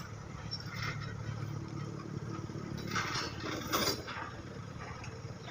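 A heavy diesel engine running steadily with a low hum, with two brief clattering noises about three and four seconds in.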